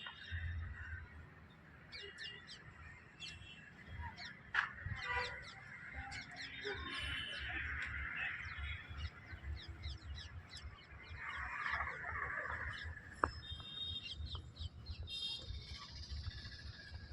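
Birds calling: many short chirps, with a few louder honking calls about five seconds in and again near the end, over an uneven low rumble.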